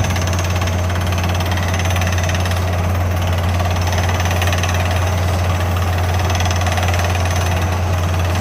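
Drilling rig's 6-inch down-the-hole air hammer pounding a 9-inch bit through rock: a fast, steady hammering over the low drone of the rig's engine and its 900 CFM air compressor.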